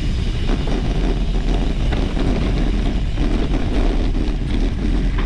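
Steady rumble of a mountain bike being ridden on a trail, with wind buffeting the microphone.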